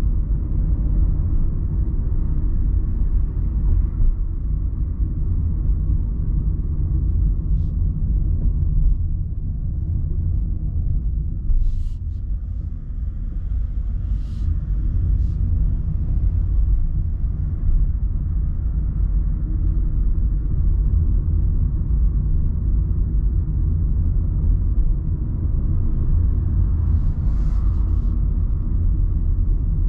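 Car driving along a town road: a steady low rumble of road and engine noise that eases slightly near the middle, with a few faint short ticks.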